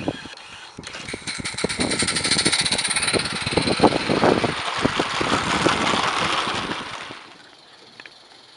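Garden-railway goods train rolling past close by, its small wagons clattering and their wheels clicking rapidly over the rail joints. The noise builds about a second in and dies away about seven seconds in as the train moves off.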